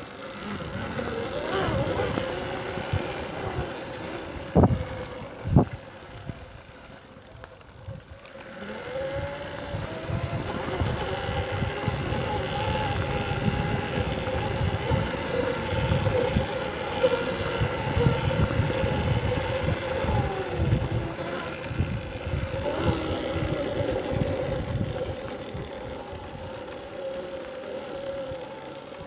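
Electric dirt bike riding: a steady motor whine that wavers slightly with the throttle, over a low rumble. There are two sharp knocks about five seconds in, and the whine grows louder after a quieter moment near eight seconds.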